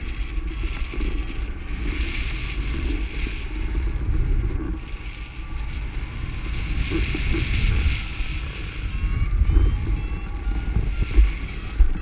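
Wind buffeting the microphone of a paraglider in flight: a heavy, uneven rumble that swells in gusts, with a hiss of airflow. Faint short beeps of the flight variometer sound through it.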